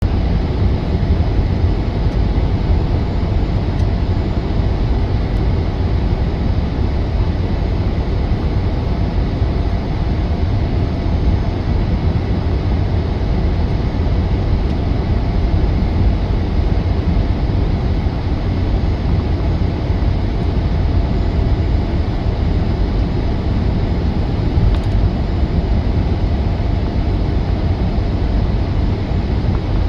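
Semi-truck driving steadily at highway speed, heard inside the cab: an even, low diesel engine drone mixed with road noise.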